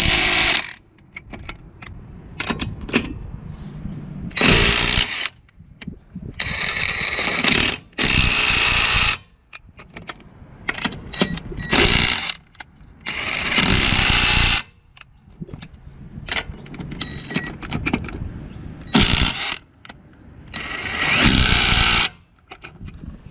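Ryobi P263 brushed 3/8-inch cordless impact wrench hammering in about eight bursts of one to two seconds each, tightening wheel lug nuts until they are torqued well past 75 ft-lbs. Short clatters and clicks of the socket and nuts come between the bursts.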